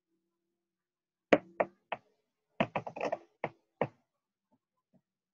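An uneven run of about ten sudden knocks or taps, starting about a second in: three spaced apart, then a quick cluster, then two more, ending before four seconds.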